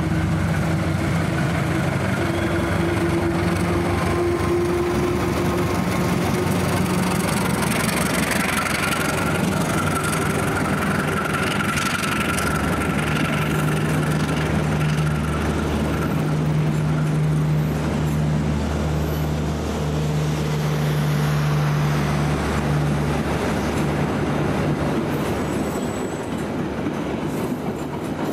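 Diesel-electric locomotive hauling a rake of stainless-steel passenger coaches past, its engine running with a steady low hum over the clatter of the wheels on the rails. A thin high whine holds for several seconds in the middle.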